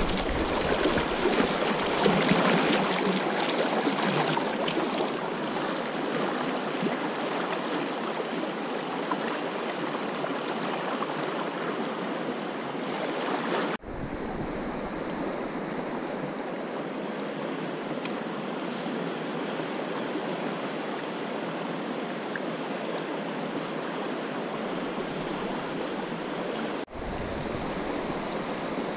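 Fast river current rushing steadily over riffles, a continuous wash of moving water heard close to the wading angler. The rush breaks off for an instant twice.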